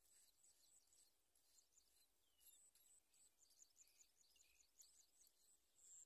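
Faint, high, thin chirping of bar-winged prinia nestlings begging at the nest, turning into a quick run of short chirps in the second half.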